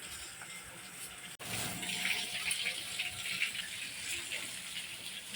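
Running water, a steady splashing hiss, broken by a short sudden gap about a second and a half in.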